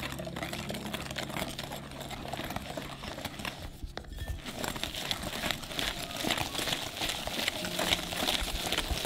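Wire whisk stirring matcha powder and flour in a glass bowl: quick, continuous scraping and light ticking of the wires against the glass, the mix working from dry powder into a thick paste.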